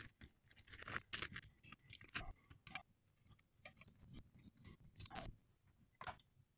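Faint, irregular clicks, taps and light rustling from handling the telescope mount's hand controller and its cable at the tripod leg.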